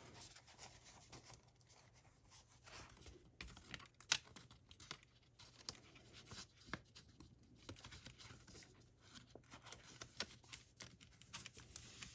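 Faint rustling and scraping of thin card and paper as a paper sleeve is slid back over a cardboard disc case, with scattered light ticks and one sharper click about four seconds in.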